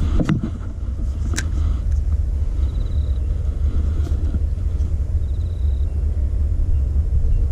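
Steady low rumble of wind buffeting the body-worn camera's microphone, with two sharp clicks in the first second and a half.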